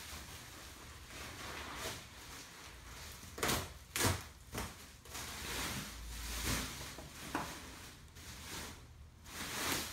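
Clear plastic packaging wrap rustling and crinkling in several short bursts as it is pulled off and handled, the loudest about three and a half and four seconds in.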